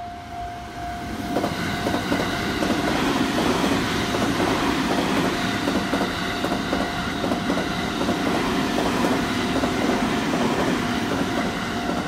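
The Sunrise Seto/Izumo sleeper train, a JR 285 series electric train, passing over a level crossing: its wheels clatter over the rail joints in a quick steady rhythm, building about a second in. The crossing's warning bell keeps ringing in a steady pulsing tone throughout.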